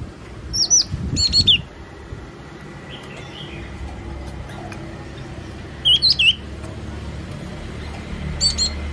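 Yellow-cheeked tit calling in short bursts of quick, high, bending notes: a cluster of about five in the first two seconds, three notes about six seconds in and two more near the end, over a low steady rumble.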